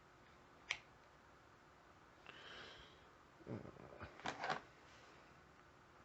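Faint handling noises from a metal lockpick and shrink tubing being worked by hand: a single sharp click about a second in, a soft rustle, then a short cluster of scrapes and clicks a little past the middle.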